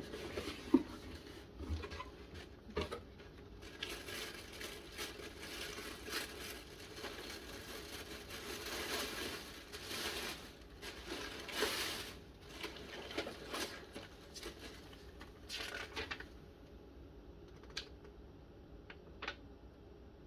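A cardboard snack box being opened and unpacked by hand: paper and packaging rustle and crinkle, with scattered light clicks and knocks. It thins to a few isolated clicks in the last few seconds.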